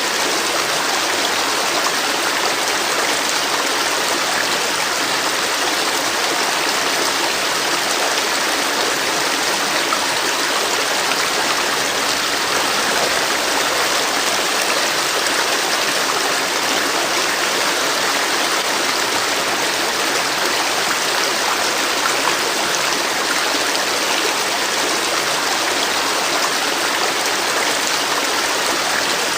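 River water flowing: a steady, even rushing that holds the same level throughout.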